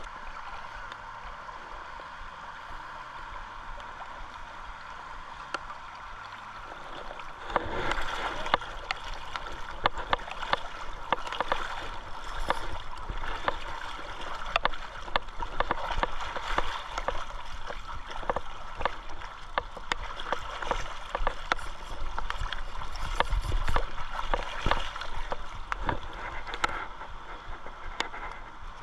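Kasilof River current running as a steady rush. From about seven and a half seconds in, a louder, dense run of rapid ticks and rustles sits over it.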